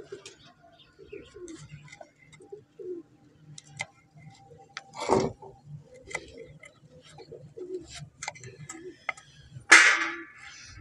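A kitchen knife cutting claw tips off raw chicken feet on a wooden chopping board: scattered sharp clicks, with louder knocks about five seconds in and near the end. Doves coo in the background.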